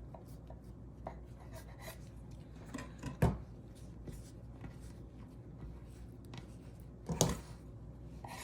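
Knife cutting through a rolled poppy-seed yeast dough log on a board: faint handling sounds with scattered light taps, and two sharper knocks about three and seven seconds in.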